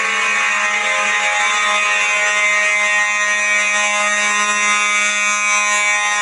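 Several fire alarm horns sounding at once in a full-system test, giving a loud, steady blare of overlapping tones with no break.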